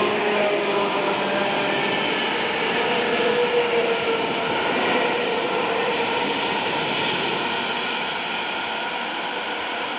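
ET2M electric multiple unit pulling away past the platform: steady running noise of its wheels on the rails, with a faint tone that slides slightly down in pitch around the middle. It fades as the train recedes near the end.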